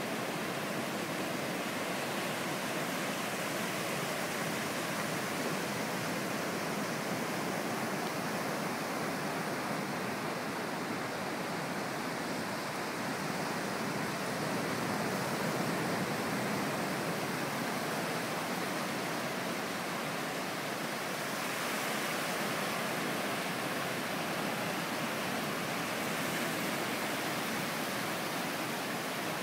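Ocean surf breaking on the shore, a steady rush of waves with a slight swell about halfway through.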